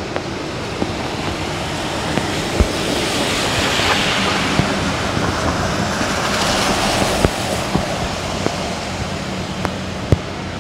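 Steady rumble of a passing vehicle, swelling about three seconds in and again around seven seconds, with scattered light clicks.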